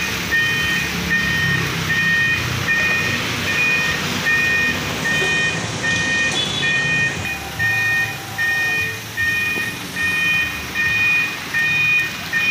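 Warning beeper of a truck-mounted crane sounding over and over in a steady electronic beep, about three beeps every two seconds, while the crane is worked. The truck's engine runs underneath.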